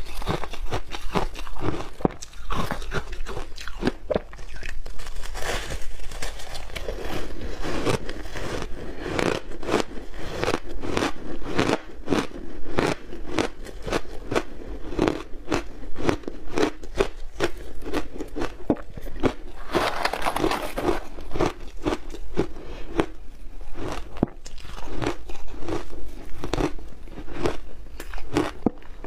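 Frozen shaved ice being bitten and chewed right at a clip-on microphone: a dense, unbroken run of crisp crunches.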